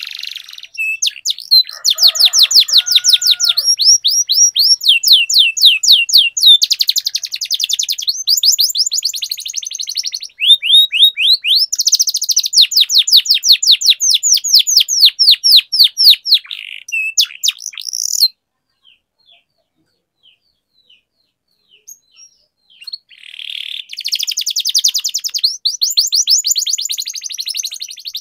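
Domestic canary singing in long runs of rapid repeated high trill notes. It breaks off about two-thirds of the way in, giving only a few faint chips for about five seconds, then resumes its trilling near the end.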